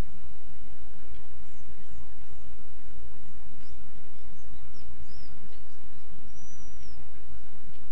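Wind on the microphone as a steady low rumbling hiss, with small birds chirping high above it and one longer whistled call near the end.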